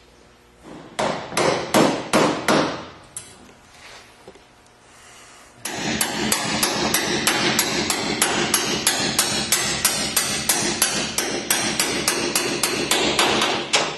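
Hand-tool work on the steel engine-mount bolts. A few loud metallic knocks come first, then about halfway through a fast, even clicking starts, roughly four clicks a second, as a ratchet wrench tightens a mount bolt.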